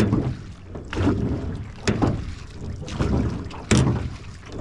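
Rowing a small aluminium boat: the oars knock in their metal oarlocks with each stroke, about once a second, over the splash and wash of the blades in the water.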